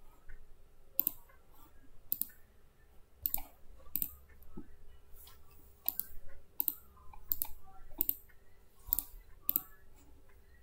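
Computer mouse clicking: about ten sharp, short clicks at uneven intervals, with a faint steady hum underneath.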